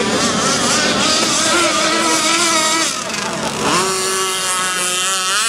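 Radio-controlled drag catamaran boat's motor running hard across the water, its pitch wavering. About three seconds in the pitch drops, then glides back up twice.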